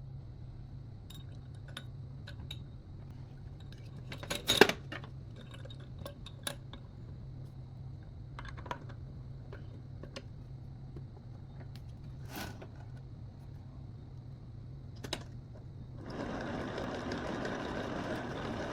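Small electric popcorn machine running with a steady hum while potatoes knock and click inside it, one knock much louder about four and a half seconds in. About sixteen seconds in, a louder even rushing noise joins.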